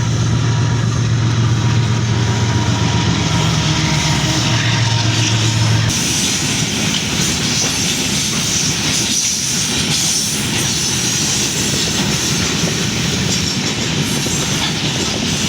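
A train passing close by. For the first six seconds or so the locomotive's low engine drone is loudest; then the carriages roll past with steady wheel and rail noise.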